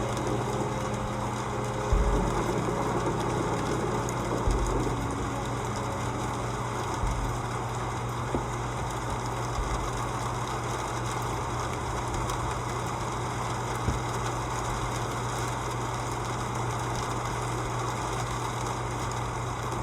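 Steady rain recording with a constant low hum under it. A few held musical notes fade out in the first few seconds, and two low thumps come early on.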